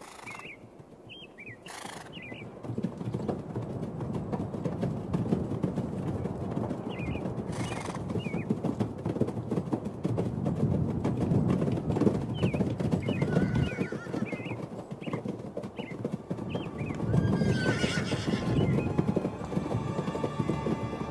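Several horses moving at a walk, their hoofbeats making a dense, uneven clopping, with birds chirping now and then. About eighteen seconds in, a horse whinnies. Music comes in near the end.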